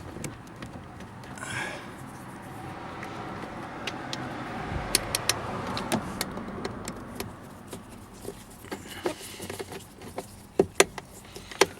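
A screwdriver driving a screw into a plastic trim panel, with rustling and scattered clicks of the tool and panel, and a few sharp clicks near the end.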